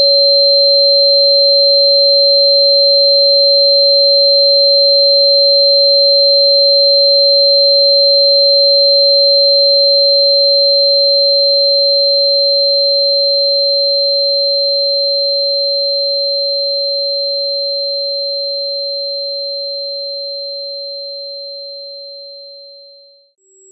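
Steady electronic sine tone at about 559 Hz, the frequency given for Chuan Bei Mu (Sichuan fritillary bulb), with a fainter high tone above it. It holds level, then fades out slowly over the second half.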